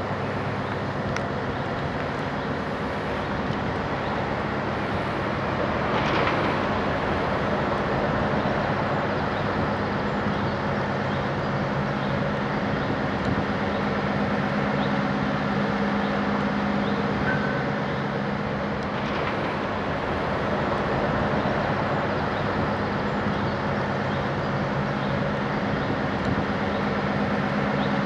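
Diesel propulsion engine of a 1976 inland container freighter (1320 hp) running steadily as the ship moves slowly past close by, giving an even, low drone.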